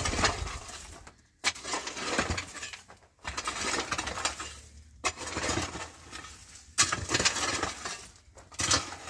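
Metal shovel scraping and scooping stony dirt, with gravel and small rocks clinking. There is a new stroke about every second and a half to two seconds.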